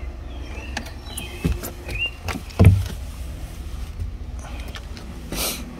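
Handling knocks and clicks over a low steady rumble, with one heavy thump about two and a half seconds in and a short burst of hiss near the end.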